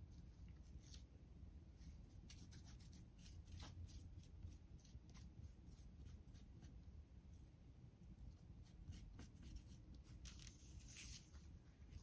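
Faint, scattered crinkles of copper metal leaf being pressed by fingertips onto a rope of polymer clay, over near silence.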